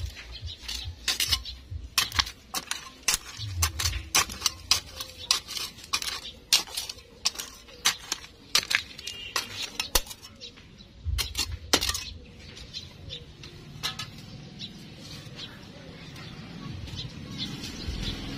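A hand tool digging and scraping into gravelly soil, with many sharp, irregular clinks and scrapes as it strikes the pebbles. The strokes come thick and fast for the first twelve seconds or so, then thin out into a softer scraping near the end.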